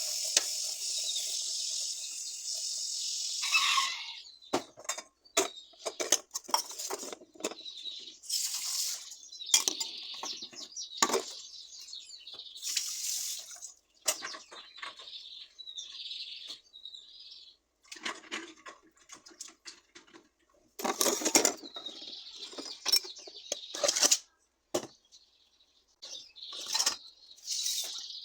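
Water running from a tap into a sink, stopping about four seconds in, followed by irregular short splashes and knocks.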